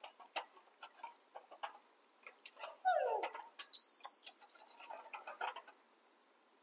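Baby macaque calling: a falling cry about three seconds in, then a loud, high, rising squeal. Light clicks of metal tongs against the wire grill and snail shells.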